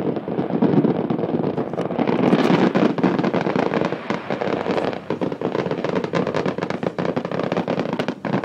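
Fireworks display going off in a dense barrage: rapid, overlapping bangs and crackles with no pause, thinning a little in the second half.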